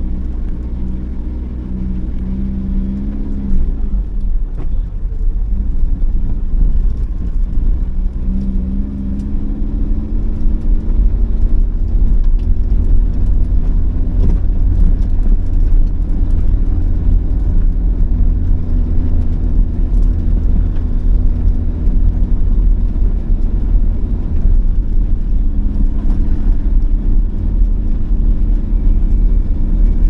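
Engine and low road rumble of a vehicle being driven, heard from inside the cabin. The engine note drops about three and a half seconds in and climbs again around eight seconds in, and the rumble grows louder from about ten seconds on.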